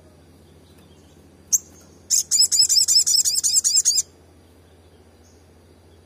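Olive-backed sunbird calling: one sharp high chip about a second and a half in, then a fast run of high repeated notes, about eight a second, lasting about two seconds.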